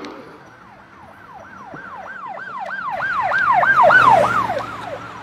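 Emergency vehicle siren in a fast yelp, its pitch sweeping up and down about three to four times a second, growing steadily louder to a peak about four seconds in and then fading.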